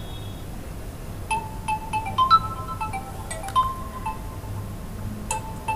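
A tune of short, bright chime-like notes stepping up and down in pitch, starting about a second in, over a low steady hum.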